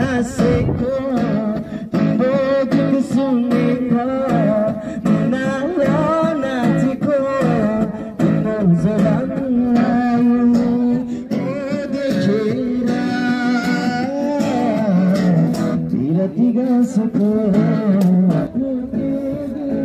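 A man singing and strumming an acoustic guitar, his voice going through a microphone and a small portable speaker: a live street performance of a song, the singing carrying a continuous melody over regular strummed chords.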